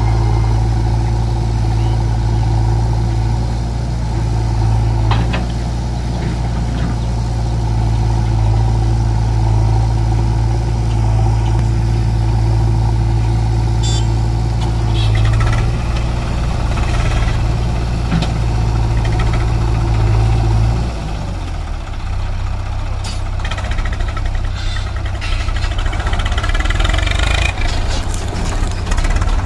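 Diesel engines of a farm tractor and a backhoe loader running at a steady idle. There are clunks and the thud of soil as the backhoe bucket empties into the tractor's trolley, with more clatter near the end. About two-thirds of the way through, the steady engine note drops and changes.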